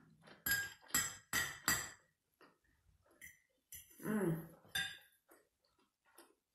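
Metal fork clinking against a plate: four quick, ringing clinks in the first two seconds. About four seconds in comes a short, pitched, voice-like sound, followed by a few faint clicks.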